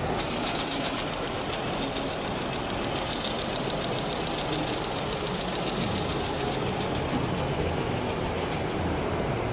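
Highlead GA2698 heavy-duty cylinder-bed lockstitch sewing machine running and stitching, a rapid, even mechanical clatter.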